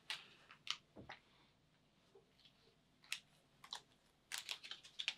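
Faint, scattered clicks and taps of painting supplies being handled while paint is refilled, with a quick run of small taps near the end.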